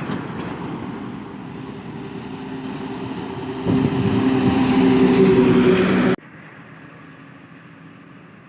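Heavy truck's diesel engine straining under load, growing louder over several seconds with a steady low drone. About six seconds in it cuts abruptly to a quieter, duller rumble.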